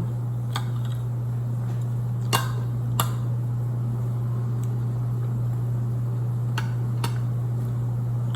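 A handful of light clicks of cutlery against a plate or dish, about five spread out, the clearest two a little over two and three seconds in, over a steady low hum.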